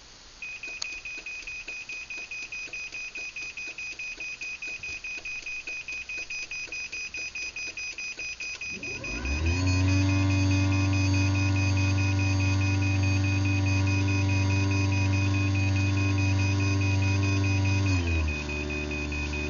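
Craftsman belt-drive garage door opener's timer-to-close warning beeper sounding a rapid, steady series of high beeps. About nine seconds in, the opener motor starts and runs with a steady hum as the opener closes, while the beeping continues. The motor winds down and stops near the end.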